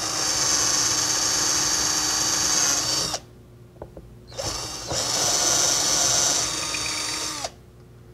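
Handheld cordless drill with a 1/4-inch pilot-point bit boring shelf-pin holes through a perforated hardboard guide into a wooden cabinet side. It runs twice, each run about three seconds long with a steady motor whine, with a short pause between: one hole after another.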